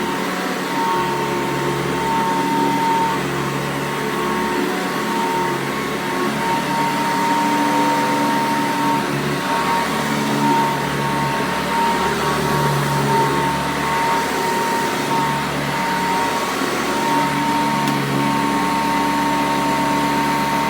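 1991 Hoover Encore Limited Edition upright vacuum cleaner running steadily, its motor giving a constant whine over a steady rushing of air.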